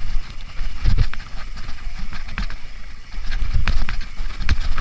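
Mountain bike descending a dirt forest trail: wind buffeting the microphone and tyres rolling over rough ground, with sharp rattles and knocks from the bike over bumps several times.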